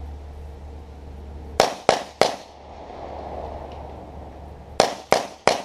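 Six pistol shots in two quick strings of three, the shots about a third of a second apart and the strings about three seconds apart, each shot echoing briefly.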